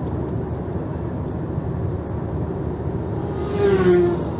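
Steady road rumble of a moving car heard from inside, with another vehicle passing close about three and a half seconds in, its pitch dropping as it goes by.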